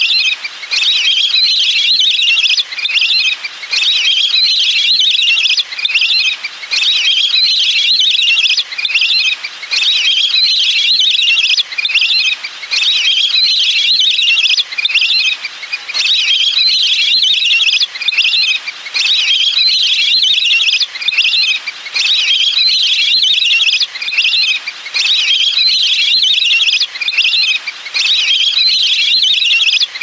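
Lesser whistling ducks calling: high, shrill whistled chatter from several birds, coming in bursts of a couple of seconds with brief pauses between them, repeated steadily as a lure call for drawing in wild flocks.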